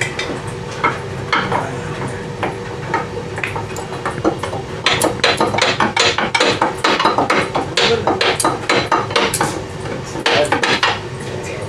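Hammer striking metal, tapping at a stuck roll pin in a hydraulic lift cylinder's mounting pin: a few scattered blows at first, then a fast run of about three or four strikes a second through the middle, and a short burst of blows near the end.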